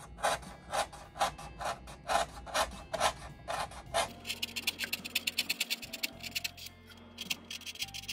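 Balsa wood being hand-sanded with a sanding block in regular back-and-forth strokes, about two a second. About halfway through the strokes turn quicker and lighter, and higher in pitch.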